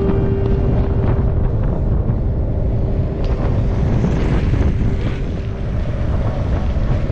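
Heavy wind buffeting the microphone at speed, over the rumble of a skateboard rolling fast downhill. A single held tone fades away over the first five seconds or so.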